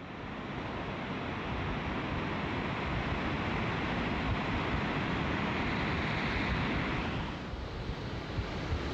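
Steady rushing noise of wind and surf at a beach, easing briefly about seven and a half seconds in.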